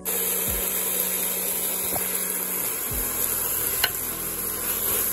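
Mutton and bottle gourd sizzling in a pressure cooker pot: a steady frying hiss that starts suddenly, with a single sharp click a little before four seconds in.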